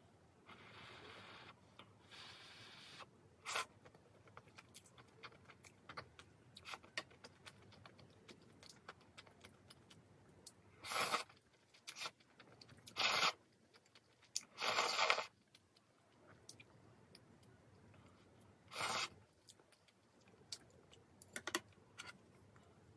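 Instant ramyeon noodles slurped off chopsticks in four loud slurps, the longest lasting about a second near the middle, with soft chewing and small chopstick-on-bowl clicks in between.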